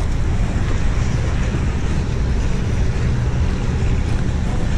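Wind blowing across the microphone, a steady low noise with no pauses.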